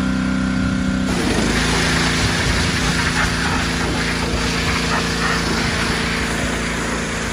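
Craftsman pressure washer running steadily. About a second in, the spray starts with a loud hiss of the water jet on concrete, and the machine's running note drops slightly as it takes the load.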